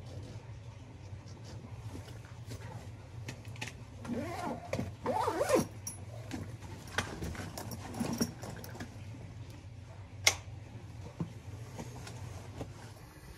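A tool backpack being handled and zipped, with rustling and scattered clicks and knocks, the densest stretch about four to six seconds in, and one sharp click about ten seconds in, over a steady low hum.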